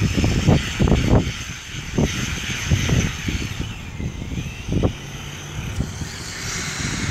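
A radio-controlled monster truck's motor whining at a distance, under uneven gusts of wind buffeting the microphone. The whine grows louder near the end.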